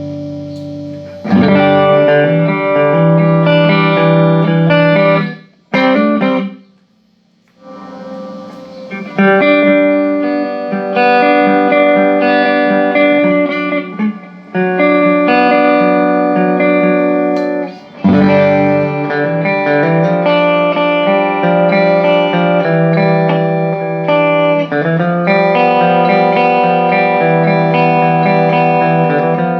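Electric guitar played through a Vox AC15 C1 valve combo amplifier, which is being tested after maintenance. Chords and notes ring out, with a brief pause about six seconds in and another short break past the middle.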